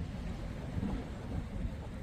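Wind buffeting the microphone, a gusty, uneven low rumble.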